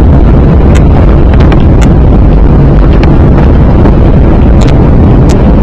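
Cabin noise of an Airbus A320-214 rolling along the runway after landing: a loud, steady rumble heard from inside the cabin, with a few light rattles.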